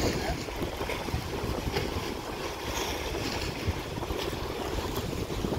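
Wind buffeting the microphone over the steady wash of small sea waves lapping against a rocky shore.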